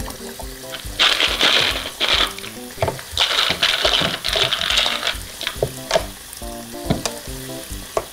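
Water running from a toy kitchen faucet onto plastic toy vegetables in a plastic colander: a hissing splash from about a second in until about five and a half seconds, with light knocks as the vegetables are turned by hand. A simple background tune plays throughout.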